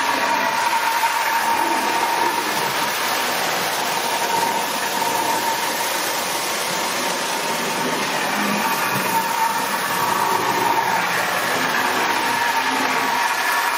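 Marx tin-plate toy diesel locomotive running steadily, its electric motor giving a steady whine over the rattle of metal wheels on tin track as it pulls a train of cars.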